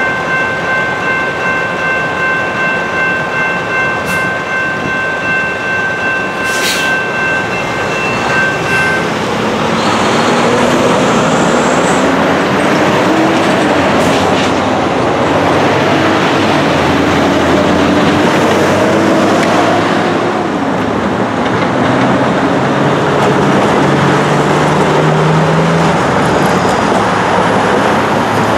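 General Signals Type 2 electronic crossing bells ringing steadily, then cutting off about nine seconds in: the end of the crossing's activation, since the bells ring throughout it. After that, cars and trucks accelerate across the crossing, their engines rising and falling in pitch over steady road noise.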